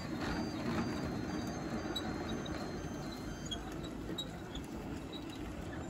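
Garden-scale Thomas the Tank Engine model train running round its track with a rake of trucks: a steady hum and rumble of the electric motor and wheels on the rails.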